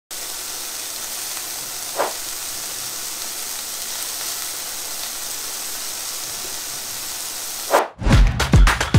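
Chicken breasts sizzling in a frying pan, a steady hiss, with a soft tap about two seconds in. Near the end a short whoosh, then music with a beat starts.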